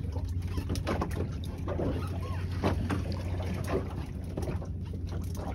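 Steady low rumble of wind and sea around a small open fishing boat, with scattered small knocks and clicks.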